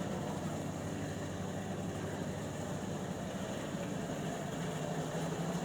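A steady low mechanical hum under an even rushing hiss, unchanging throughout.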